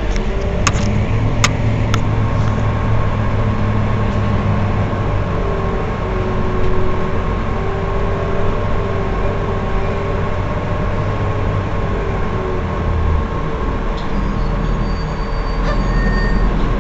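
Heuliez GX 327 city bus idling steadily at a stop, with a low engine hum. Three sharp clicks sound in the first two seconds.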